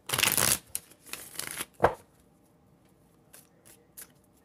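Tarot cards being shuffled: two short rustling bursts of cards sliding together, then a sharp snap just before two seconds in and a few light taps as the cards are handled.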